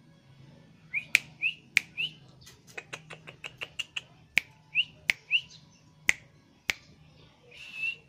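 A long-tailed shrike (pentet) calling: short rising chirps mixed with sharp clicks, including a quick run of about eight clicks around three seconds in. A longer, scratchier call comes near the end.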